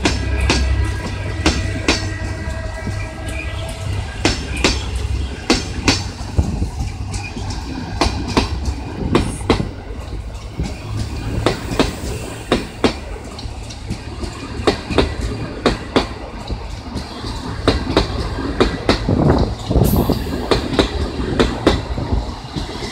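Passenger coaches rolling past as the train pulls out, their wheels clacking over the rail joints in an uneven string of knocks over a steady low rumble. For the first few seconds a squeal of several tones rises from the wheels.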